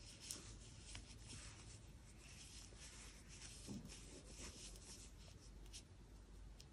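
Faint rustling and scratching of yarn being worked with a crochet hook, with a few light ticks.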